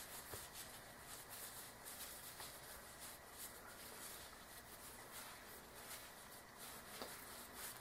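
Near silence with faint rustling of a knit sock being rolled up between the fingers.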